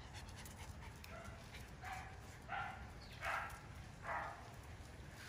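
Miniature Schnauzer puppy giving four short barks in quick succession, starting about two seconds in.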